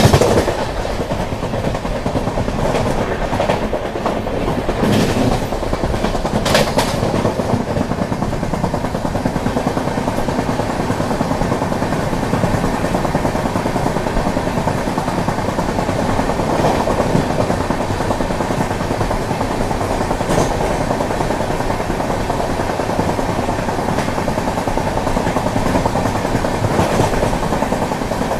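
Indian Railways passenger train running: the steady rumble and rattle of the coaches, with wheels clicking over the rail joints and a few sharper knocks between about three and seven seconds in.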